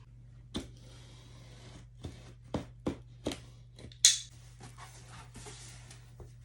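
A large cardboard Lego box being handled and opened: a series of light taps and knocks, then a brief sharp scrape about four seconds in.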